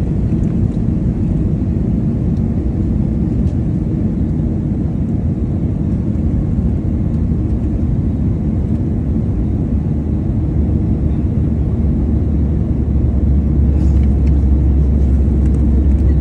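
Airliner cabin noise on approach: a steady low rumble of engines and airflow, growing louder and deeper about ten seconds in.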